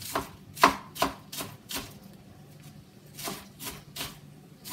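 Knife chopping lettuce on a cutting board: a quick run of about five sharp chops, then a short pause and three more.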